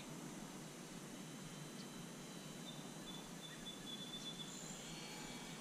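Quiet outdoor ambience: a steady low rumble of wind, with a couple of short, high bird chirps about four and a half seconds in.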